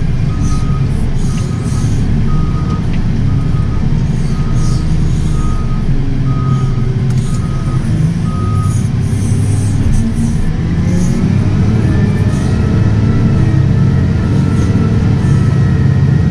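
JCB 435S wheel loader's diesel engine running, heard from inside the cab, with its reversing alarm beeping about once a second until about eight seconds in. Later the engine note rises as the loader works the silage clamp.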